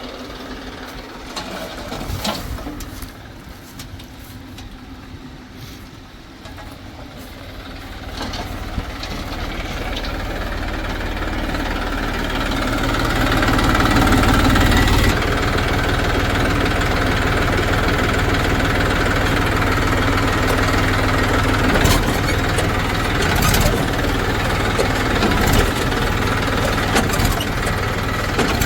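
A heavy vehicle's engine running, growing louder over several seconds and then holding steady.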